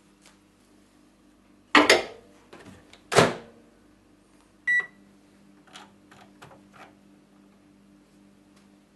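Microwave oven being loaded and set: two loud bangs about a second and a half apart as the bowl goes in and the door is shut, then a single short beep from the control panel and a few faint clicks over a steady low hum.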